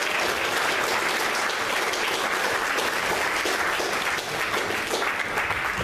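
A roomful of people applauding with their hands, a dense, steady clapping that stops abruptly near the end.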